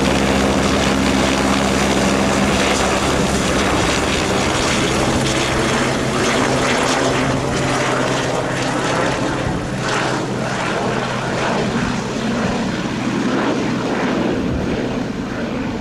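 Helicopter flying overhead with a sling load, its rotor and engine making a loud, steady noise that eases off slightly as it draws away.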